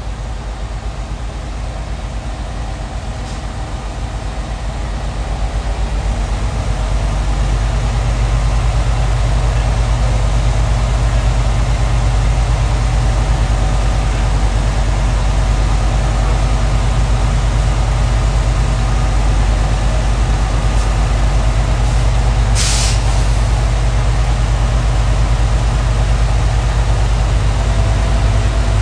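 Truck's diesel engine held at raised rpm to build air-brake pressure, its drone growing louder about seven seconds in and then holding steady as the air tanks fill toward full pressure. A brief high hiss about two-thirds of the way through.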